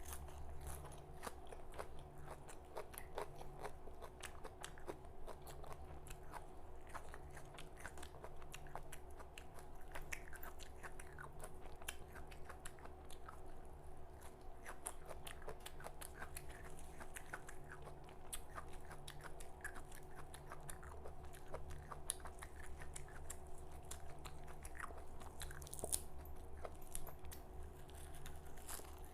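Close-up mouth sounds of a person biting and chewing raw vegetables: dense, irregular wet crunches and clicks, over a steady low hum.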